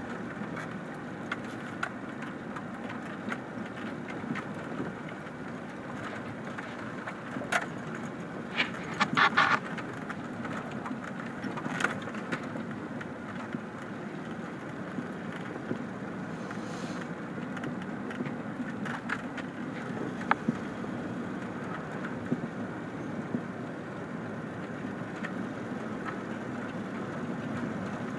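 A car driving over a loose gravel track, heard from inside the cabin: steady engine and tyre noise with the crunch of stones, and scattered sharp knocks as gravel strikes the car, a few of them louder about eight to ten seconds in.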